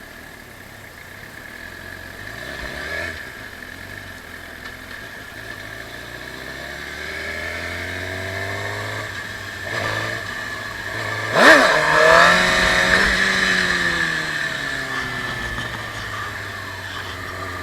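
Suzuki GSX-R sportbike engine running as the bike pulls away and gathers speed, with a sharp, loud rise in revs about eleven seconds in that then eases off. The chain has been refitted onto a bent front sprocket and the drive jerks under the rider.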